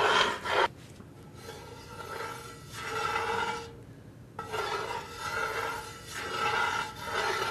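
A long metal spoon scraping around the bottom of a cast-iron pot in repeated rasping strokes, stirring a thick oil-and-flour roux constantly to keep it from sticking.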